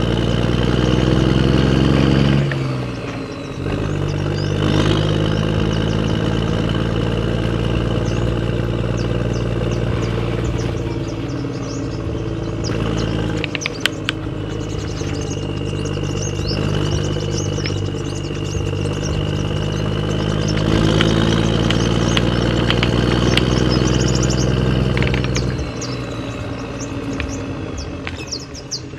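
Steady engine-like running sound of a radio-controlled construction model, which winds down and cuts out about two and a half seconds in, then starts again. A higher steady whine runs above it, with scattered light clicks, and the engine sound drops lower near the end.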